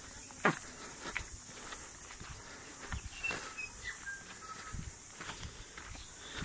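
Footsteps on a dirt bush track as people walk along it, with a sharp knock about half a second in. A few short bird whistles come in the middle.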